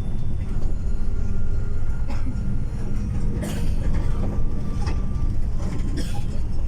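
Steady low rumble of a moving tour bus's engine and road noise heard inside the cabin, with a few short sharp sounds over it.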